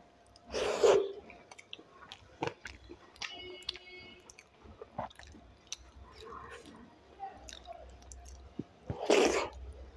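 Close-miked chewing of rice, dal and fried potato eaten by hand, with many small wet clicks and smacks of the mouth. Two louder wet bursts come as handfuls go into the mouth, about half a second in and again near the end.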